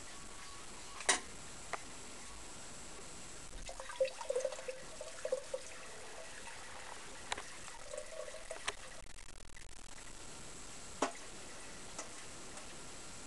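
Buttermilk and soft butter grains poured from a bowl into a metal sieve, trickling and dripping through the mesh, with a few sharp clicks.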